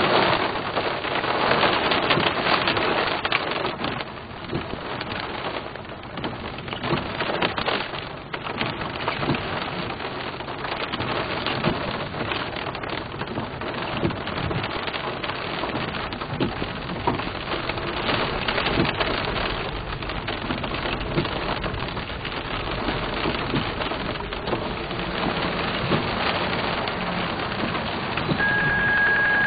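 Heavy thunderstorm rain pattering steadily on a vehicle, heard from inside it as a dense patter of drops. Near the end there is a short high beep lasting about a second.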